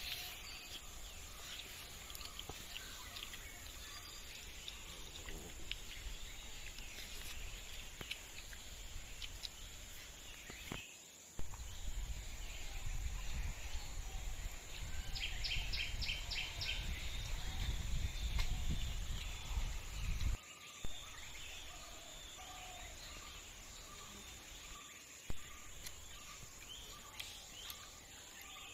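Outdoor rural ambience: birds calling, including a short fast trill and a run of repeated short calls about two a second near the end, over a steady high insect hum. A low rumble comes in for several seconds through the middle and cuts off suddenly.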